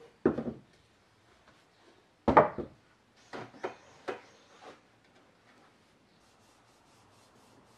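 Solid wooden blocks knocked down onto a wooden plank floor twice, the second knock the loudest, then a short scraping rub with a few lighter wooden knocks as a wooden stool takes a person's weight.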